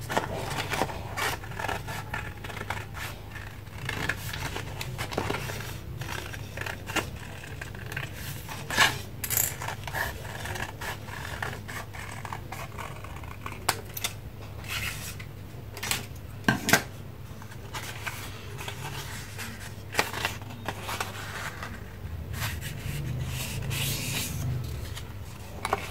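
Scissors cutting through a folded sheet of A4 colored paper, a run of irregular snips and paper rustles, over a steady low hum.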